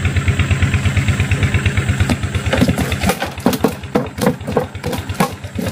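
Small boat engine idling with a fast, even putter that cuts off about three seconds in, followed by a string of sharp knocks.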